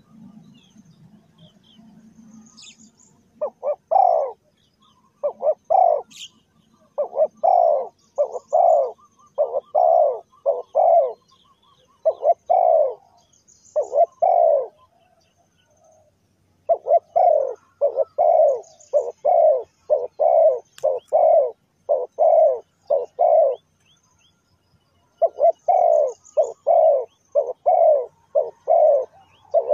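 Spotted doves cooing: runs of short, deep coo notes that start about three and a half seconds in and break off twice for a second or two. Faint high chirps of small birds run behind them.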